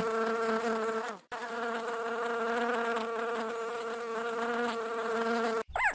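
A bee buzzing steadily at a constant pitch, with a brief break a little over a second in.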